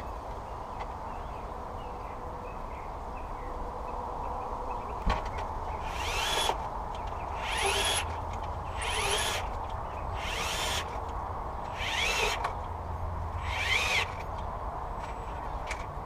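A power drill or driver run in six short bursts about a second and a half apart, the pitch rising and falling within each burst, over a steady low hum.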